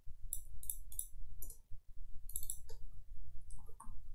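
Computer keyboard typing: keys clicking in several quick bursts of a few strokes each, over a low steady hum.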